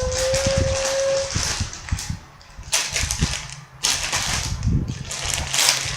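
Crinkling and rustling of plastic in irregular bursts, with small handling knocks, as a squishy toy is handled and taken out.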